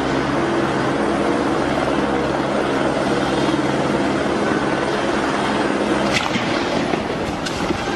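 Aircraft running steadily: a loud, even drone with a low hum under it, and a couple of brief clicks about six seconds in.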